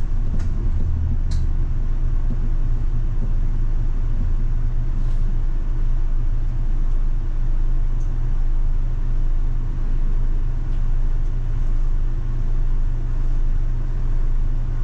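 Steady low rumble of a city bus's engine and running gear, heard from inside the bus, with a few faint clicks in the first couple of seconds.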